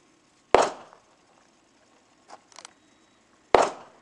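Two pistol shots about three seconds apart, each a sharp crack that dies away quickly, with a few faint clicks between them.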